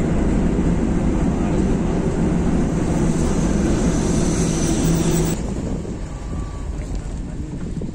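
Steady road noise inside a moving car at highway speed: tyre and engine rumble. It cuts off suddenly about five seconds in, leaving a quieter steady background.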